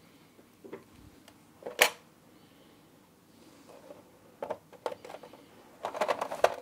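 Scattered light taps and clicks as cookies are rolled in a glass bowl of powdered sugar and set down on a wire cooling rack. There is one sharp click about two seconds in and a cluster of small knocks near the end.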